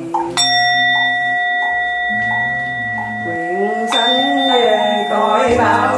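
Buddhist bowl bell struck twice, at the very start and again about three and a half seconds later, each strike ringing on with clear, steady high tones, over slow low-voiced sutra chanting.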